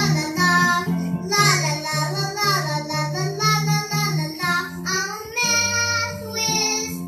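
A child singing a song into a microphone over instrumental accompaniment with a steady, evenly repeated bass line.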